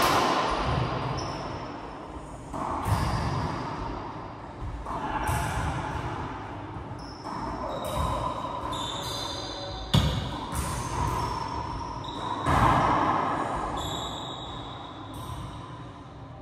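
Racquetball ball being struck and smacking off the court walls, five sharp hits about every two to three seconds. Each hit echoes and dies away slowly in the enclosed court.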